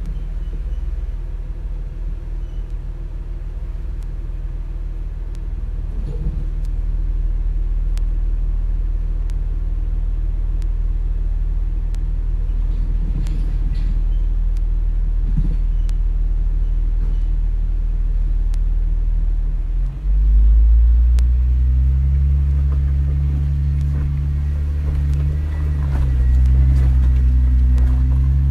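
Off-road Jeep engine running with a steady low rumble, then pulling harder and louder about two-thirds of the way in as the vehicle moves forward up the rocky trail.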